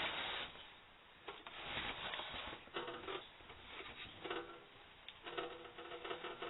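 Hands handling and rubbing the emergency lamp: bursts of rustling and scratching, then a run of short squeaky rubbing strokes over the last second or so.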